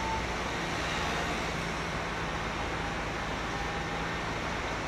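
Large mobile crane's diesel engine running steadily under a broad mechanical noise, with a faint thin tone about the middle.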